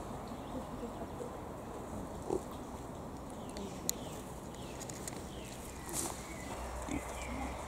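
Wild boar grunting briefly a few times over a steady rustle, with one sharp click about four seconds in.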